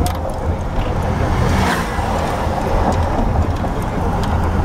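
Car driving along a road, heard from inside the cabin: a steady low engine and tyre rumble with a few light clicks.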